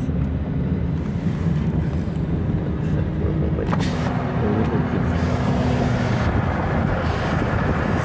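Steady road and tyre rumble heard inside a moving car's cabin, with one brief click a little under four seconds in.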